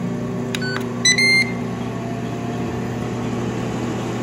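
Ninja Foodi indoor grill's control panel beeps twice as its 5-minute cooking timer is started, a short lower beep and then a louder, higher one. Under the beeps the running grill's fan hums steadily.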